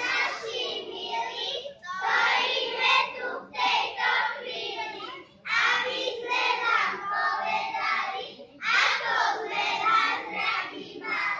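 A group of young children singing a song together, in phrases of a few seconds with short breaks between them.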